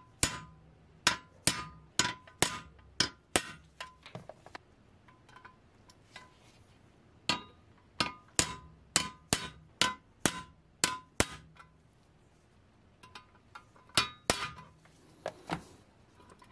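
Hammer striking a steel punch to set rivets in a pressed-steel Tonka toy part laid on an anvil. The sharp metallic taps come in runs of about two to three a second, each with a short ringing tone, and there are two pauses.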